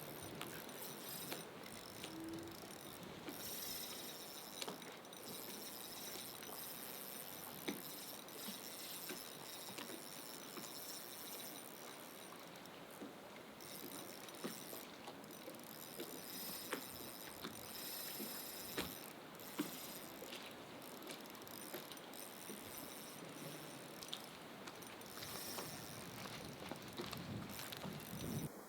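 Outdoor night ambience: a steady, high-pitched insect trill with scattered small clicks and taps, like gear being handled.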